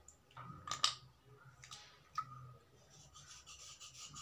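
Knife blade scraping wet slate pencils: a few separate scrapes, then a quick run of short scraping strokes in the last second or so.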